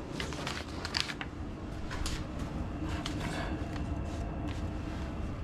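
Newly installed Viessmann high-efficiency gas boiler system running: a steady low hum, with scattered light clicks and rustles over it.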